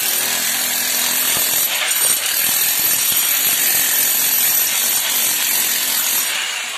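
Electric chipping hammer cutting into a brick wall, running loud and continuous, then winding down near the end.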